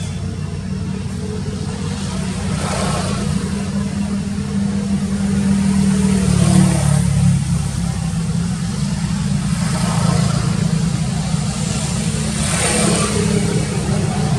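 Steady low rumble of motor-vehicle engines running, swelling and fading four times as vehicles go by.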